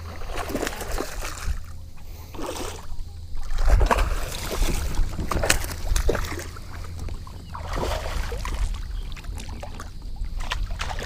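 Water sloshing and splashing around a kayak while a hooked bass is fought to the boat, with scattered clicks and knocks over a steady low rumble.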